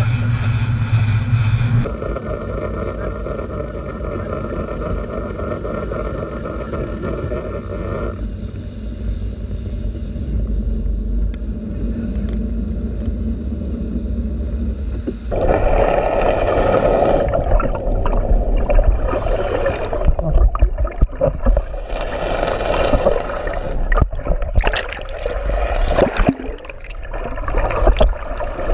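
A boat's engines running with a steady low drone. About halfway through it gives way to underwater noise: water rushing and bubbling with irregular crackles.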